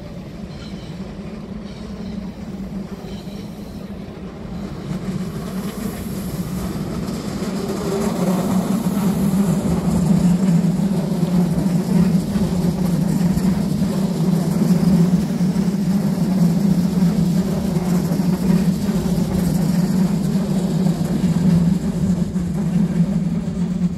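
Red DB S-Bahn electric multiple unit rolling past close by, a steady low rumble of wheels on rails and running gear. It grows louder over the first eight seconds as the train approaches, then stays loud while the carriages pass.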